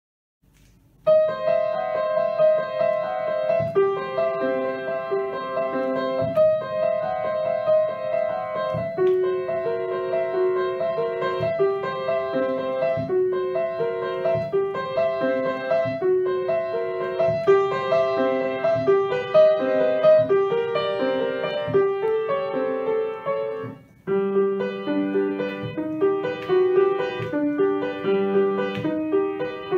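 Solo grand piano playing a melody over a lower accompaniment. It begins about a second in and breaks off briefly about two-thirds of the way through before going on.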